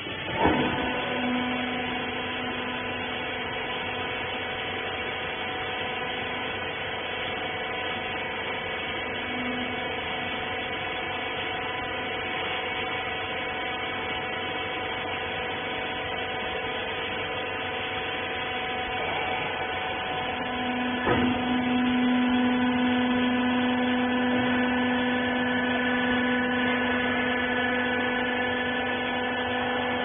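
Hydraulic rag baler's power pack running with a steady, high whine. A knock comes just after the start, and a sharp click about two-thirds of the way through, after which the whine grows louder.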